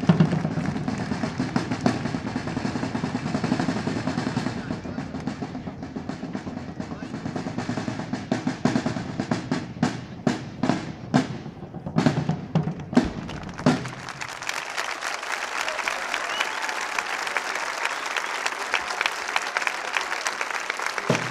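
A corps of field drums plays a continuous rolling rhythm, closing with a run of sharp, separate accented strokes, and stops about two-thirds of the way through. The crowd then applauds steadily.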